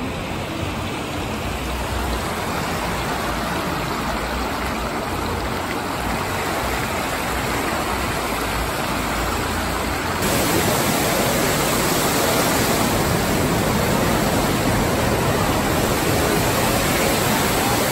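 Steady rush of water from the Rain Oculus, a giant acrylic bowl that swirls water into a whirlpool and lets it plunge as a waterfall to the pool below. The rush gets louder about ten seconds in.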